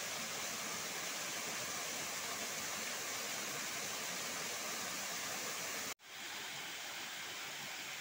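Small waterfall pouring over a rock face into a pool: a steady rush of falling water. About six seconds in the sound cuts out for an instant, then carries on a little quieter.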